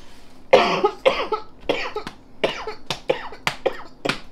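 A woman coughing into a napkin: a fit of about seven coughs in quick succession, starting about half a second in, the first the loudest.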